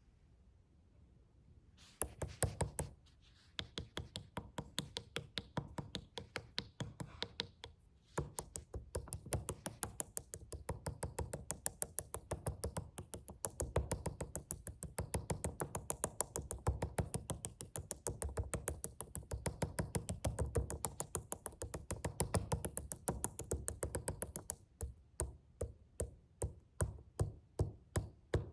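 Quick, even tapping on a suitcase, starting about two seconds in and running on with a brief pause, thinning out near the end.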